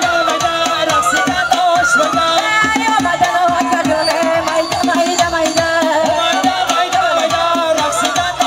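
Live wedding band music: a keyboard melody over a fast, busy hand-drum rhythm.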